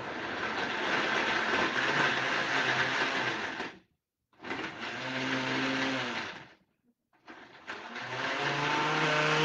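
Glass-jar countertop blender blending ice cubes and chunks of unpeeled apple into a smoothie, run in three bursts: a first run of about four seconds, then two shorter runs of about two seconds each with brief stops between them.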